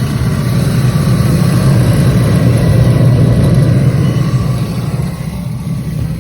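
An engine running steadily, swelling to its loudest about halfway through and easing off near the end.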